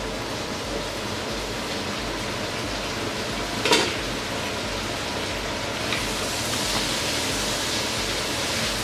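Steady sizzling hiss of cauliflower, carrots and peas cooking in an uncovered sauté pan on a gas burner, with a sharp clink a little before the halfway point as the glass lid is set down.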